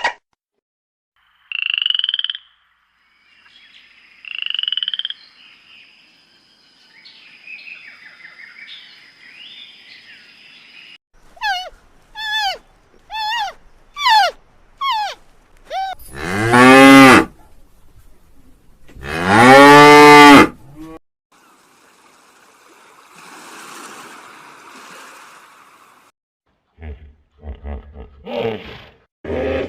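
A string of different animal calls, the loudest being two long cow moos about three seconds apart, each rising and then falling in pitch. Before them comes a run of short calls that fall in pitch, about two a second; after them come fainter, rougher calls.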